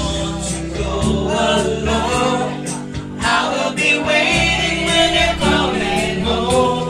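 A singer singing a melody over instrumental backing music.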